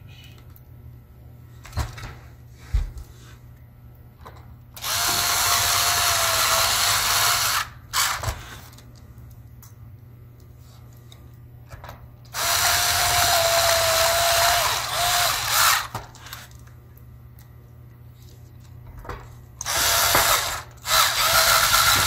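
Cordless electric screwdriver driving small screws into a laptop's plastic chassis: three runs of a steady motor whine, each about three seconds long, with short clicks of handling between them.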